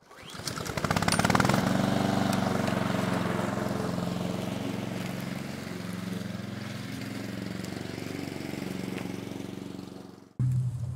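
Small petrol lawn mower engine coming up to speed with rapid pulsing, then running steadily and slowly getting quieter. It cuts off sharply just before the end, where a different low hum takes over.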